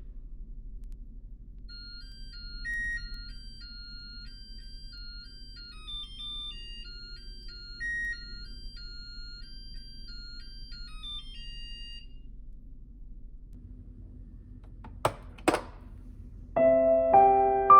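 A short electronic chime melody of high, thin single notes plays for about ten seconds. After a pause, two sharp clicks sound close together, and soft piano music starts near the end.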